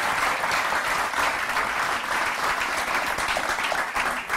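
Studio audience applauding: dense, steady clapping that thins into scattered single claps near the end.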